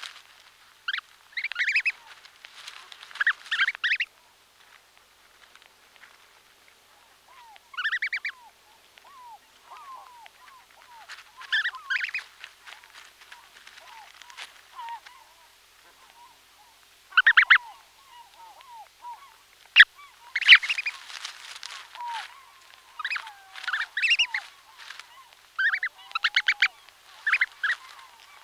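Brant goslings calling from inside their eggs, close up: a run of soft, short, rising-and-falling peeps, broken every few seconds by louder, harsh, rapidly pulsed calls.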